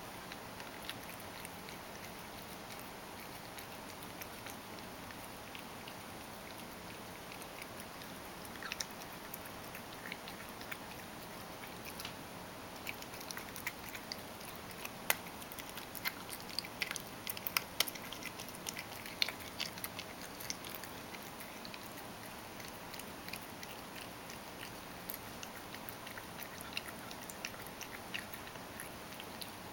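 Ragdoll cat eating crushed dry food softened with hot water from a stainless steel bowl: many small, quick wet clicks of chewing and licking, busiest through the middle stretch.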